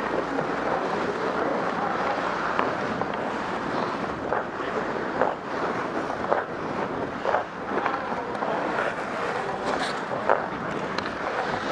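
Hockey skate blades scraping and gliding on rink ice, with wind rushing over the microphone of the moving skater, and a few scattered sharp clicks.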